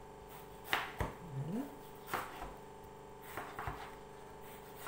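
Chef's knife cutting through a cucumber and knocking on a plastic cutting board: about five separate sharp knocks at an unhurried, irregular pace.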